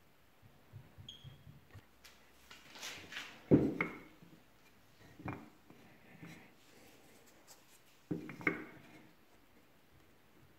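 Wooden workpieces handled on a workbench: light rubbing and tapping with a few sharp wooden knocks, the loudest about a third of the way in and two close together about three-quarters through, as a pine block and a wooden dowel are set down and fitted by hand.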